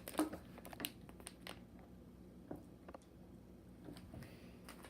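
A snack package being handled: a few light crinkles and taps, mostly in the first second and a half, then a quieter stretch.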